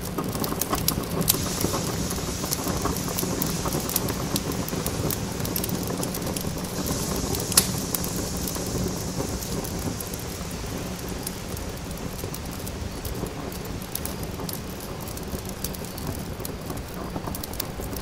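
Wood campfire crackling and popping: many small sharp cracks over a steady hiss, with two louder pops, about a second in and about seven and a half seconds in.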